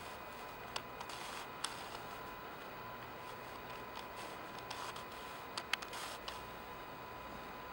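Dancers' feet on a stage floor: a few scattered soft taps and scuffs over a steady hiss with a faint steady hum.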